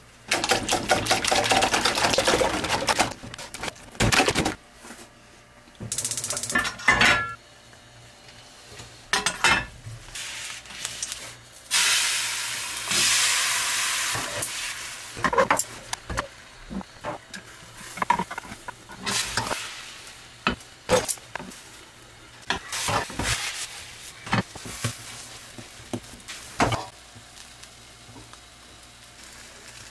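Beaten eggs stirred fast in a stainless-steel bowl, then egg mixture ladled into a hot rectangular omelet pan and sizzling for a few seconds about halfway through. Scattered clinks and scrapes of utensils on the pan and bowl fill the rest.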